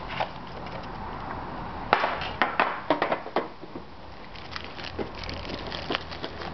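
Foil-wrapped hockey card packs and a metal card tin being handled: the packs are lifted out and set down. A cluster of sharp clicks and taps around two to three and a half seconds in, with light wrapper crinkle.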